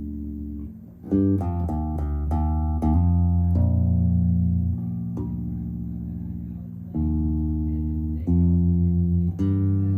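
Electric bass guitar, an Ibanez BTB866SC, played through a bass amp. A held note fades out, then a quick run of short plucked notes comes about a second in, followed by longer ringing notes, each new one struck sharply.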